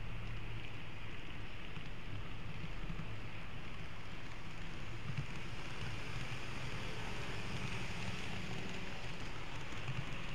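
N-scale model train running along the layout track, picked up by a camera riding on the train: a steady running noise with a low hum underneath.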